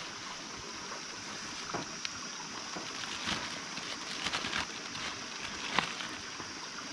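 Steady water noise, like running or sloshing water, with a few short sharp knocks or splashes scattered through it.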